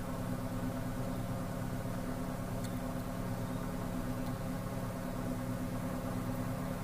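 A steady low machine hum at an even level, with a couple of faint ticks over it.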